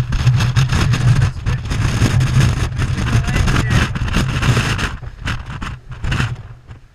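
Wind buffeting the camera's microphone: a loud, gusty rumble that eases near the end.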